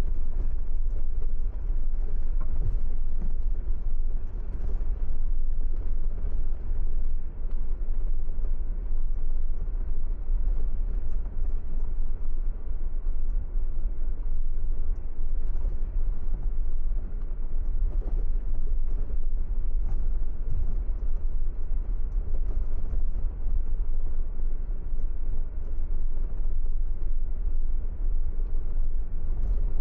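Steady low rumble of a car driving on the highway: road and wind noise.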